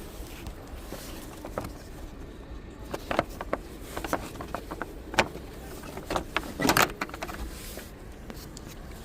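Mitsubishi Pajero engine running with a steady low hum. In the middle there is a series of sharp clicks and knocks, the loudest about five and seven seconds in.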